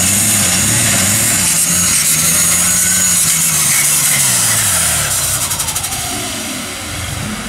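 Super stock pulling tractor's engine running hard under load, with a high whine above it, then dropping in pitch and winding down about five seconds in as the pull ends.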